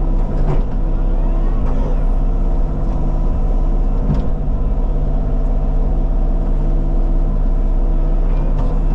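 Diesel engine of a Bobcat compact machine (T595 tracked skid steer or E35 mini excavator) running steadily at working speed, with a few short knocks and a brief squeal from the machine working.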